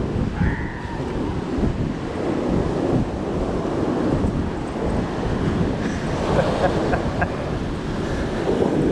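Wind buffeting the microphone of a GoPro action camera over the steady wash of ocean surf breaking on a sandy beach.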